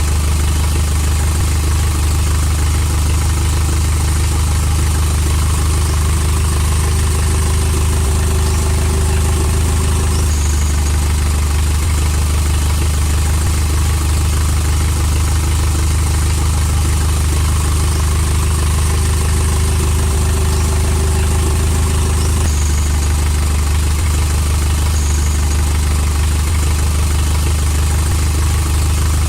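Small motor of a homemade mini tractor running steadily with a low hum, its tone shifting slightly about ten and twenty-two seconds in.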